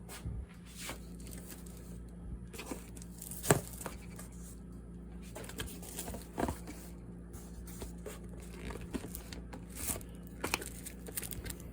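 Handling of a boxed 100-shot Saturn missile battery: scattered knocks, scrapes and paper or cardboard rustling, with a steady low hum underneath.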